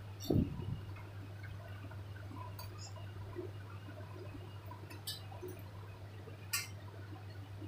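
Fingers smearing desi ghee over a steel thali: faint soft rubbing with a few light clicks on the metal, over a steady low hum. A brief low thump sounds just after the start.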